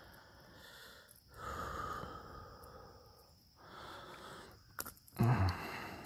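A person breathing heavily in long, breathy exhales after the strain of landing a big fish. There is a sharp click near the end, followed by a brief low grunt.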